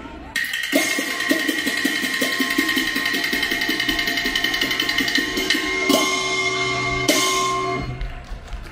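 Qin opera percussion accompaniment playing a fast rhythm: drum strokes about three a second under ringing gongs and cymbals. Sharp crashes come about a third of a second in, near six seconds and about seven seconds.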